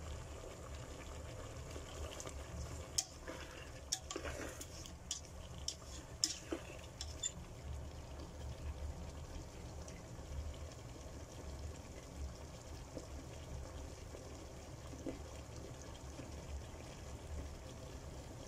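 Chicken wings cooking in a thick sauce in a pan, the sauce bubbling and simmering steadily. A few sharp clicks of a spatula against the pan come between about three and seven seconds in.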